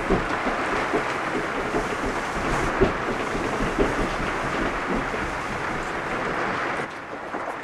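Slow footsteps, soft thuds about once a second, under a steady rushing noise.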